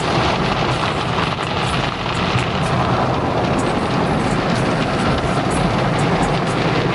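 Automatic car wash heard from inside the car: a steady rush of water spray and spinning brushes washing over the windshield and body, over a steady low hum.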